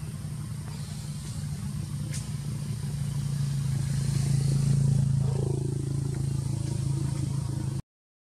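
Low, steady hum of a vehicle engine running close by, growing louder to a peak about five seconds in, then cutting off abruptly near the end.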